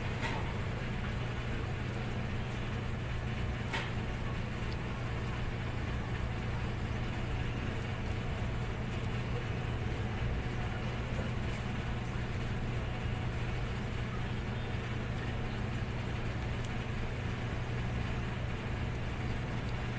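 Steady low background hum under an even hiss, unchanging throughout, with one faint click about four seconds in.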